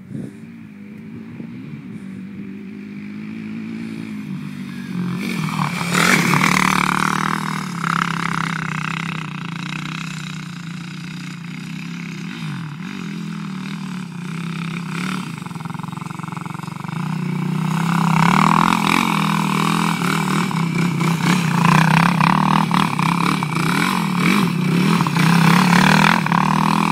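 Kawasaki KFX 450R quad's single-cylinder four-stroke engine revving as it is ridden, growing loud about six seconds in and again through the last third as it comes close.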